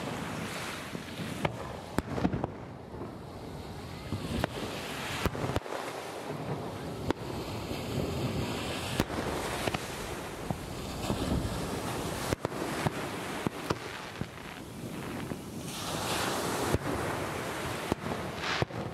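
Aerial fireworks shells bursting in the distance: a string of sharp bangs at irregular intervals, over a continuous rushing noise.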